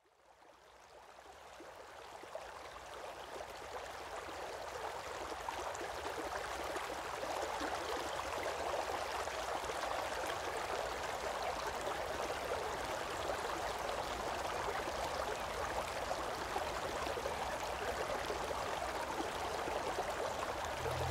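Running water of the spring-fed Tergola river, a steady stream sound that fades in from silence over the first several seconds and then holds even.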